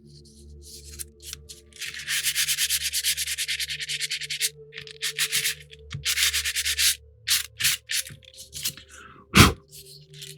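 Light hand-sanding of a small wooden model-kit bulkhead, back-and-forth rubbing strokes to smooth the rough wood. A fast run of strokes starts about two seconds in, then slower separate strokes follow, and a single sharp knock comes near the end.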